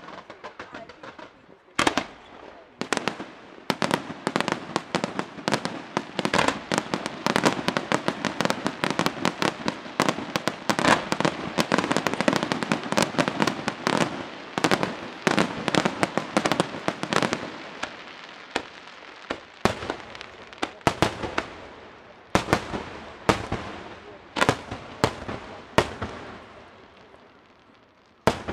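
Fireworks display: after a brief hiss, a dense barrage of sharp bangs and crackling shell bursts, thinning after about eighteen seconds into separate loud bursts with short gaps.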